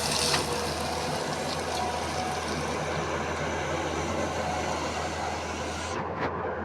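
Heavy diesel machinery running steadily: a low engine hum under a broad rushing noise, the highest part of which drops away about six seconds in.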